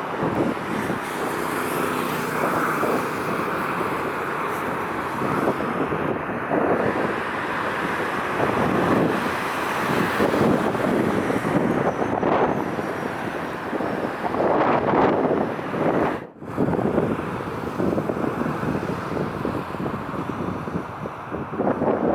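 Strong gusting wind buffeting the microphone, a loud, uneven rushing that surges and eases, dropping out sharply for a moment about two-thirds of the way through.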